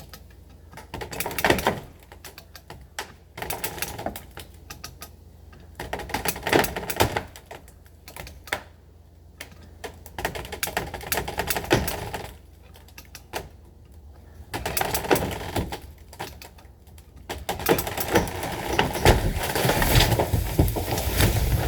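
Hand come-along ratchet being cranked in strokes, each stroke a quick run of clicking, about every two seconds, as it tensions a heavy chain. Near the end comes a louder, continuous clattering with a low rumble.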